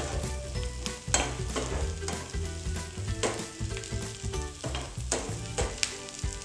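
Sliced onion, capsicum and garlic sizzling in fat in a non-stick frying pan while a metal slotted spoon stirs them, with sharp scrapes of the spoon against the pan every second or so.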